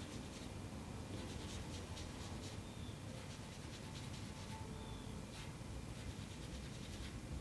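Very fine 00000 steel wool rubbing over the treated steel surface of a handpan, a faint run of scratchy back-and-forth buffing strokes, several a second.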